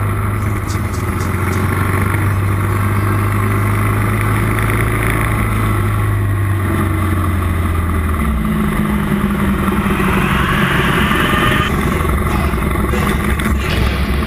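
Motorcycle engine running under way with wind rush on the microphone; about eight seconds in the engine note steps up to a higher pitch, and it then holds there.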